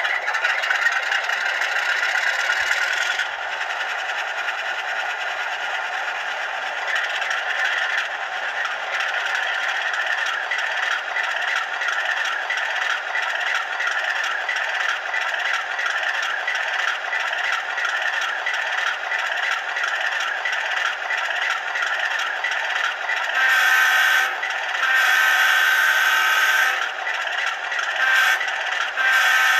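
Sound of an HO-scale Alco RS-3 model locomotive's LokSound 5 decoder: the diesel engine sound plays through the model's small onboard speaker, with a steady rattling clatter throughout. Near the end the decoder's horn blows several times: long, long, short, then long.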